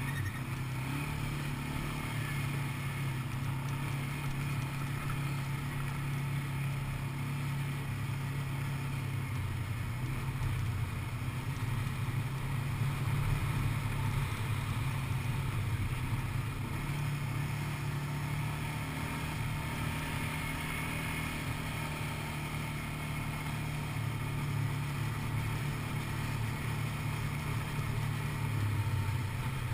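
ATV (quad bike) engine running steadily while being ridden, heard from on the machine, with a light hiss of wind noise on the microphone.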